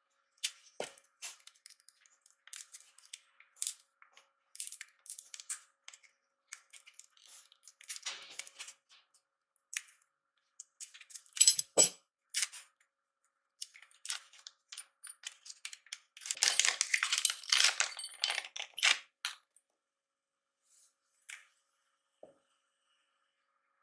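Thin protective plastic film crinkling as it is peeled off a small aluminium folding Z camera stand, with light clicks and taps from handling the stand. About halfway through comes one sharp clink of a hard object on the table, and a few seconds later a longer stretch of dense plastic crinkling.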